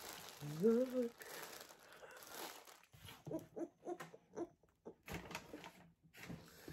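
Clear plastic bag around a soft gift crinkling as it is handled, in two spells of rustling, with laughter between them.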